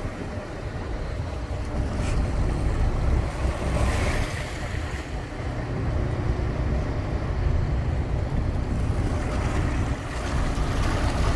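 Motor yacht under way: a steady low engine rumble with rushing water and wind buffeting the microphone.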